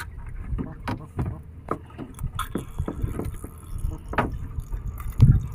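Scattered clicks and knocks of fishing line and tackle being handled in a small wooden boat, over a steady low rumble of water and wind, with a louder thump near the end.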